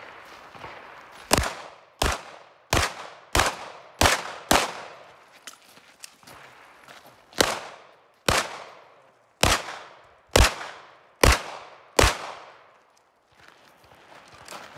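Smith & Wesson M&P 2.0 pistol fired in a rapid competition string: six shots about two-thirds of a second apart, a pause of about three seconds, then six more shots, each with a short echoing tail.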